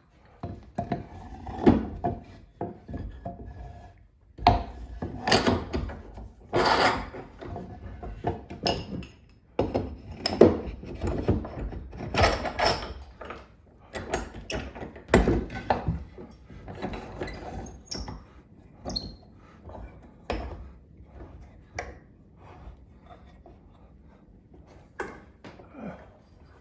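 Wooden parts of a homemade bench vise being fitted and worked by hand: irregular wooden knocks, clunks and sliding, rubbing scrapes, busiest in the first half and easing to lighter, sparser taps later.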